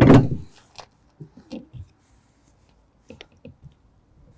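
A brief voice sound at the start, then a few faint metallic clicks and knocks as the detachable swan-neck tow ball neck is fitted into its receiver under the car's bumper.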